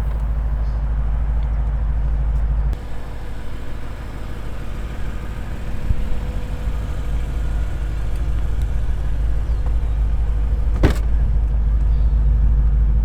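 Car engine running with road noise from a moving car. About three seconds in the sound drops suddenly, then builds steadily louder. There is one sharp knock near the end.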